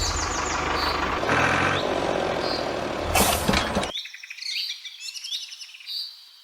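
Small birds chirping repeatedly in quick falling notes, over a steady low rumble that cuts off abruptly about four seconds in, leaving only the chirping.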